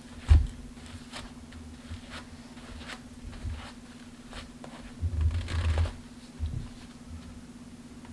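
A sponge and fingertips rubbing and pressing a vinyl wrap onto a rifle's receiver, making soft scuffing and rubbing noises. There is a knock about a third of a second in, and a louder spell of rubbing and bumping about five seconds in.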